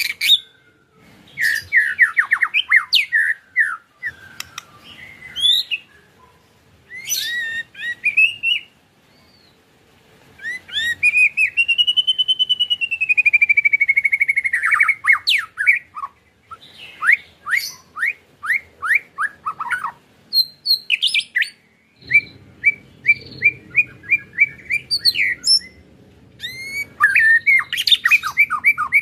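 White-rumped shama (murai batu) singing in separate phrases: quick runs of sharp descending chips, a long whistle that rises and falls around the middle, and fast rattling runs of repeated notes, the 'ketrekan' style, near the end.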